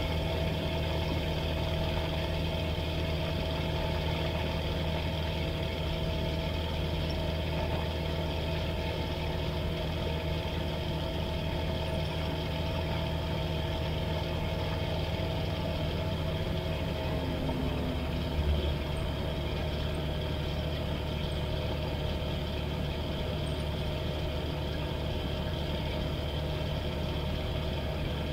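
Flight Design CTSW's Rotax 912 four-cylinder engine running steadily at taxi idle, propeller turning, with one brief thump about two-thirds of the way through.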